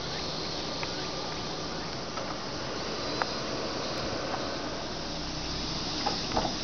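Steady hiss, with a few faint clicks and taps, the sharpest about three seconds in and a small cluster near the end.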